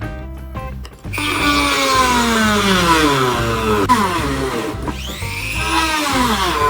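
A power tool's electric motor running under load, starting about a second in, its pitch sagging as it bogs down and later dipping and rising again, over background music.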